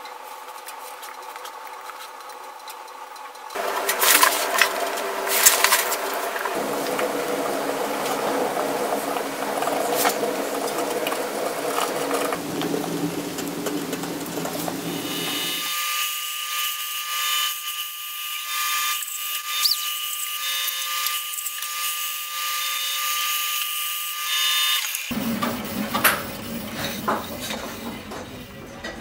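Wood being handled and worked at a bench, then a power tool runs with a steady high whine for about nine seconds, stopping abruptly near the end.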